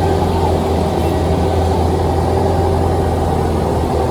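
Heavy construction-machine engine running steadily, a constant low drone with a steady whine over it.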